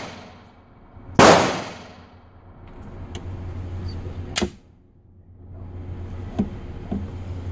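A single loud pistol shot from a Glock 19 fitted with a .22 conversion, about a second in, followed by a fainter, sharper crack a few seconds later.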